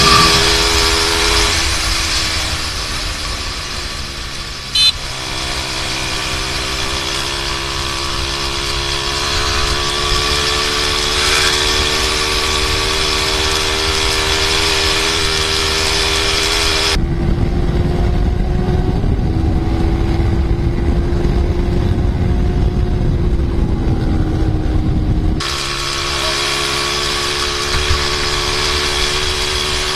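A sport motorcycle's engine running steadily at highway speed, heard from an onboard camera with wind noise on the microphone. About five seconds in the engine note dips briefly with a click. In a stretch past the middle, low wind rumble grows heavier under a lower, steady engine note.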